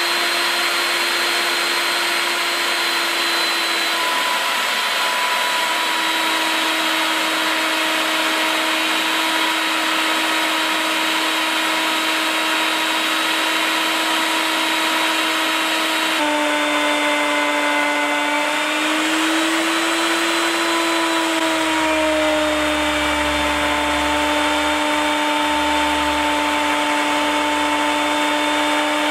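Porter-Cable 3¼-horsepower router running at high speed with a coving bit, cutting a cove into a solid-surface countertop backsplash. It is a steady, loud whine whose pitch shifts slightly partway through as the bit's load changes.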